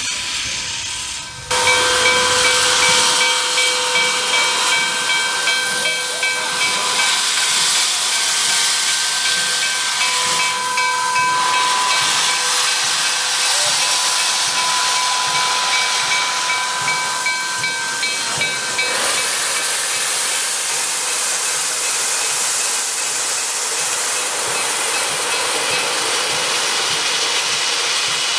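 Steam hissing steadily and loudly from the open cylinder cocks of Nickel Plate Road 765, a 1944 Lima-built 2-8-4 Berkshire steam locomotive. A faint steady whistling tone runs under the hiss until about two-thirds of the way through.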